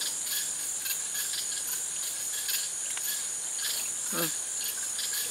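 Chorus of night insects: a steady high-pitched trill that pulses evenly a few times a second.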